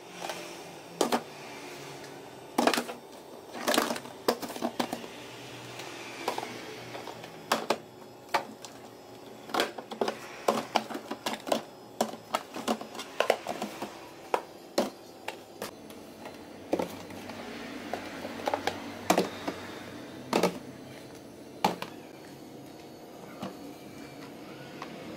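Plastic food-storage containers being knocked together and set down on glass refrigerator shelves: irregular sharp clacks, a few to several every couple of seconds.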